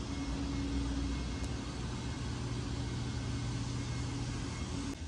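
Steady hum and air rush of a large hall's ventilation, from wall-mounted fans and air conditioning, with a low rumble under a few steady hum tones.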